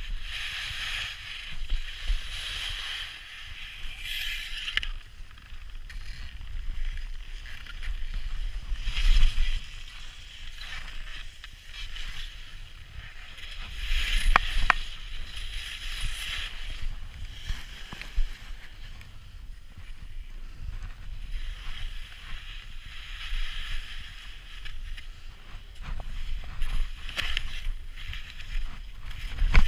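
Skis scraping and hissing over hard-packed snow through a series of turns, swelling and fading every few seconds, with wind rumbling on the microphone.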